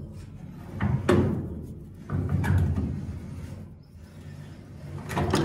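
Metal clanks from a wrench working the screw of a bearing puller clamped on a straw reaper's bearing housing: a handful of sharp knocks, each ringing out, the loudest about a second in and again near the end.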